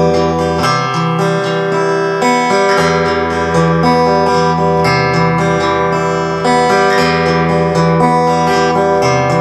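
Instrumental intro music led by guitar playing chords, changing about once a second.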